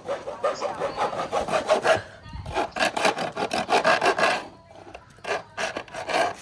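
Hand saw blade cutting back and forth in quick, even strokes through part of a motorcycle's rear, cutting away room for a larger tyre. The sawing pauses briefly about two seconds in and is fainter near the end.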